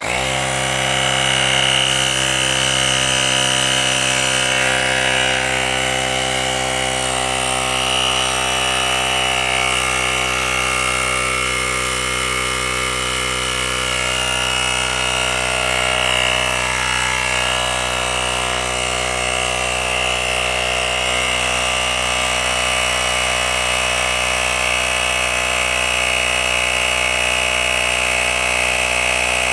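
A small portable cordless tire inflator's piston compressor starts abruptly and runs steadily, with a high whine over its hum, pumping up a bicycle tire from about 21 PSI toward its 30 PSI cut-off.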